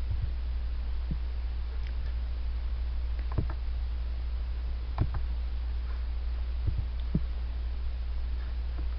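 Steady low electrical hum, with a few faint short clicks scattered through it.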